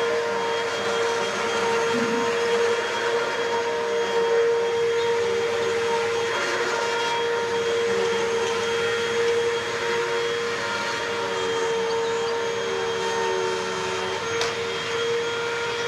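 Upright vacuum cleaner running steadily: a constant motor whine over the rush of air.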